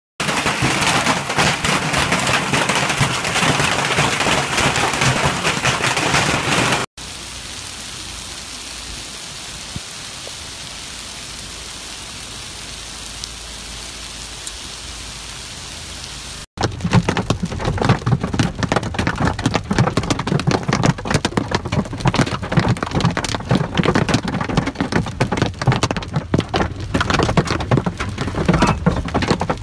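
Hail pelting a corrugated translucent patio roof in a dense clatter. After a cut about seven seconds in, a softer, steady hiss of hail and rain falling on a lawn and wet street. After another cut about sixteen seconds in, hail drumming on a car's windshield while the wiper sweeps.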